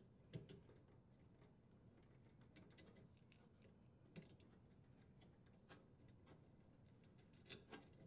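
Near silence with faint, scattered clicks and ticks of plastic twist-on wire nuts and copper wires being handled as the nuts are unscrewed and the wires pulled apart. A few sharper clicks come about half a second in, around four seconds in, and near the end.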